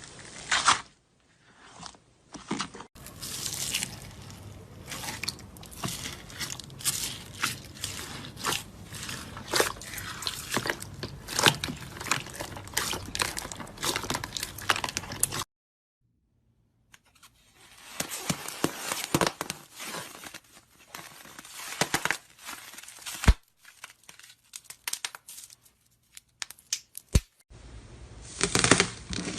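Hands squishing, poking and stretching slime: dense runs of small crackles, pops and squelches. It comes in several separate clips, with a second or so of silence about halfway through.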